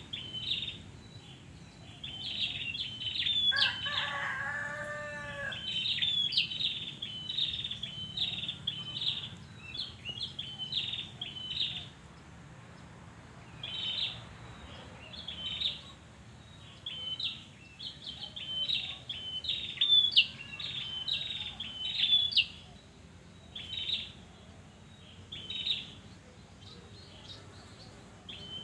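A red-headed prenjak singing: bursts of sharp, high chirping phrases repeated every second or two, the kind of song played to prompt caged birds that have gone quiet into singing. About four seconds in, a lower call with several stacked tones sounds for about two seconds.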